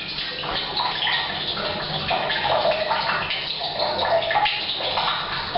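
Tap water pouring steadily from a pipe into a water tank, with gurgling splashes, mixed with rain falling on the roof, echoing in a bathroom.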